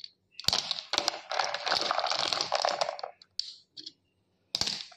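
Clam shells clicking and clattering against one another as a hand stirs and scoops a pile of wet clams in a tub. There is a dense rattle for about two and a half seconds, then a few scattered clicks.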